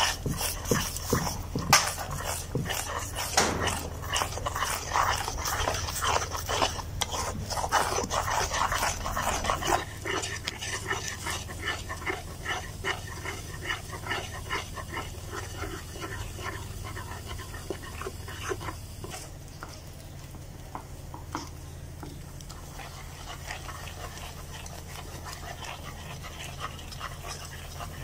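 A wooden spatula stirs and scrapes a thick milk-powder paste in a wok (kadai) as it is cooked down, making a quick run of scrapes and squelches. The strokes are busiest for the first ten seconds or so and grow lighter after that.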